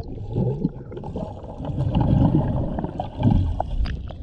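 Pool water heard with the microphone held underwater: a muffled low rumble with swelling gurgles and sloshes from swimmers moving nearby. Near the end come a few sharp splashes as the microphone breaks the surface.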